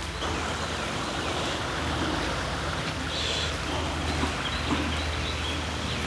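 Creek water running steadily over rocks.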